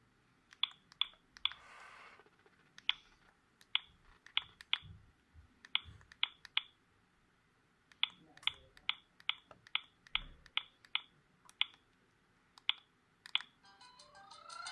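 Sagem myW-8 mobile phone keypad being pressed: short, sharp button clicks, often in quick pairs or threes, as the user scrolls through the phone's menu. A ringtone starts playing about a second before the end.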